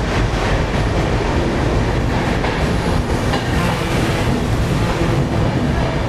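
Running noise of a passenger express train, heard from an open coach door as it rolls into a station: a steady rumble of wheels on rails.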